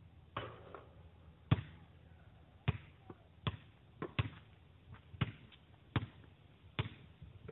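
A basketball strikes the hoop about half a second in, then bounces on an asphalt court and is dribbled: about eight sharp separate bounces, the loudest about a second and a half in, then roughly one a second.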